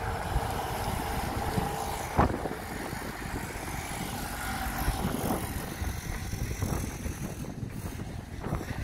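Trucks driving on a road: a steady rumble of engines and tyres, with a sharp knock about two seconds in.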